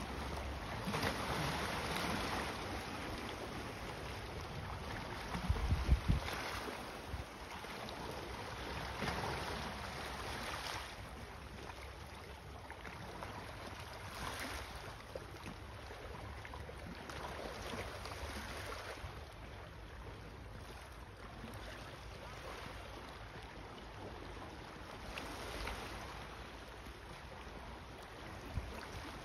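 Outdoor wind noise on the microphone, rising and falling in gusts, with a loud low buffet about six seconds in.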